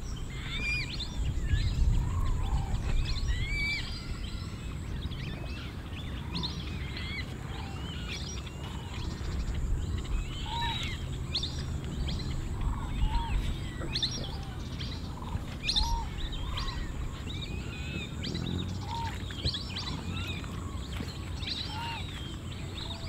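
Small birds chirping busily throughout, with one short lower call repeating every couple of seconds, over a steady low rumble.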